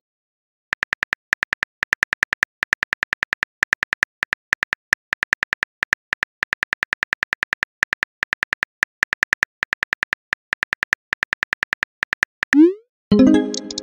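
Simulated phone-keyboard typing clicks, several a second and evenly spaced, as a text message is typed out in a texting-story app. Near the end a short rising swoosh and a louder pop mark the message being sent.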